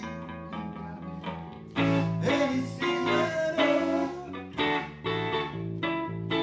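Electric guitar played live with band accompaniment: an instrumental passage of chords and sustained notes, some bending in pitch, struck on a steady beat.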